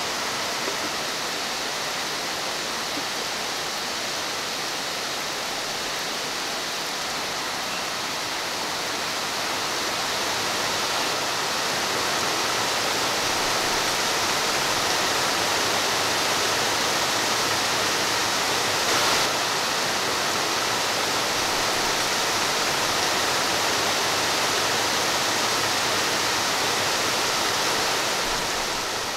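Steady rain falling, an even hiss that grows a little louder about ten seconds in.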